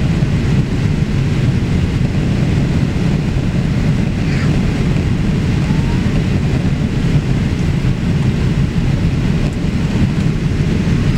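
Boeing 787-8 heard from inside the cabin in flight: a steady low rumble of engine and airflow noise that holds level throughout.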